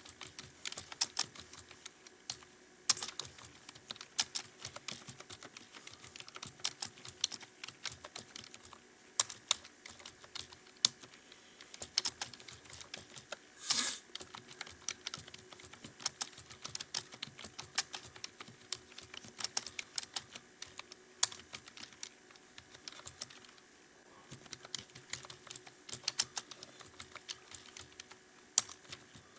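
Fast touch-typing on a computer keyboard: keys clicking in a quick, irregular stream with short pauses. About halfway through comes a single louder, longer burst of noise.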